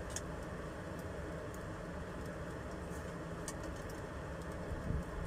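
Steady low background noise with a couple of faint clicks from white plastic blender parts being handled, near the start and again about three and a half seconds in.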